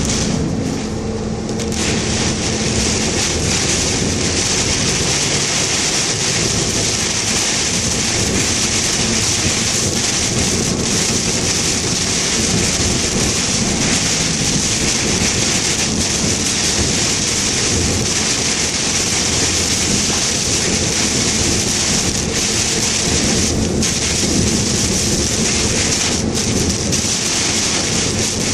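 Heavy typhoon rain beating steadily on a car, a dense unbroken hiss.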